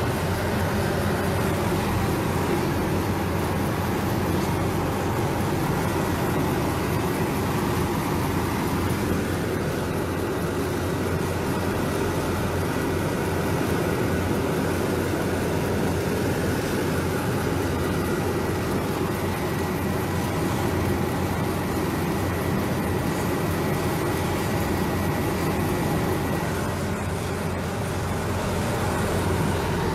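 Helicopter engine and rotor running, heard from inside the cabin with the door open: a steady, loud, dense noise with a faint high whine.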